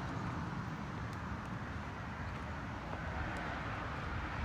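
Outdoor heat pump condensing units running nearby: a steady fan drone with a low rumble.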